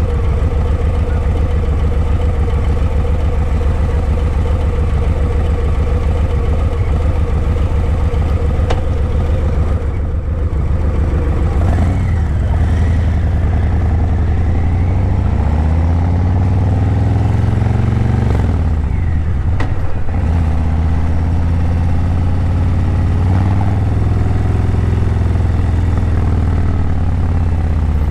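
Harley-Davidson Breakout 117's Milwaukee-Eight 117 V-twin through Vance & Hines Eliminator 300 slip-on mufflers, under way. It runs at a steady speed at first. From about halfway it revs up through the gears, falling back sharply at one shift and climbing again.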